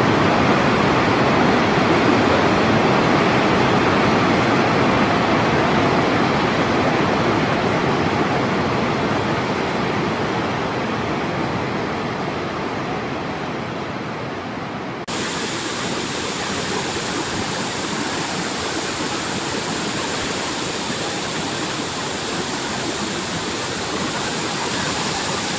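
Dam water release: a large volume of water pouring and rushing steadily. About halfway through, the sound changes abruptly to a brighter, hissier rush.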